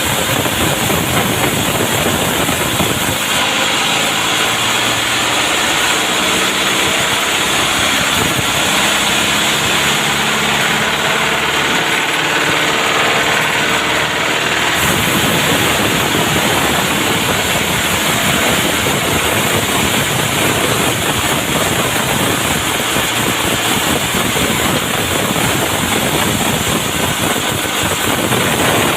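An engine running steadily under loud, even noise, with a lower engine tone that shows from about three seconds in until about fifteen seconds in.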